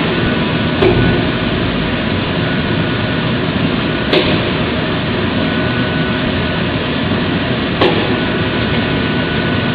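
High-frequency PVC/EVA welding machine running with a steady mechanical noise and a faint steady tone, with a sharp click about 1 s in, another near 4 s and a third near 8 s.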